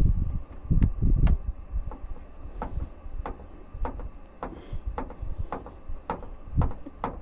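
Handling noise from work on an air-handler fitting: a few dull thumps, then a steady run of short, light clicks or knocks, about two a second.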